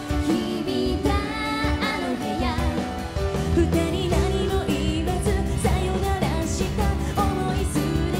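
Japanese idol pop song performed live: a young woman singing the melody into a handheld microphone over band accompaniment with a steady bass line and beat.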